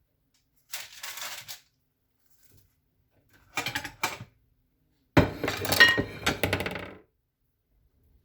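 Kitchen things being handled: a soft rustle, a few light clinks, then a louder clatter of hard items knocking together with a brief metallic ring about five seconds in, typical of a pan and utensils being moved on a counter.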